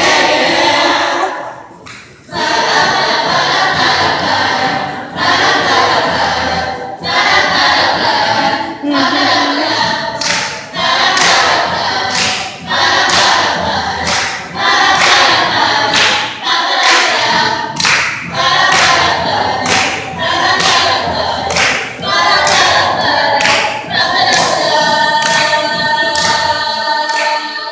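A group choir singing, with regular percussive hits on the beat about once a second. Near the end the voices hold one long chord.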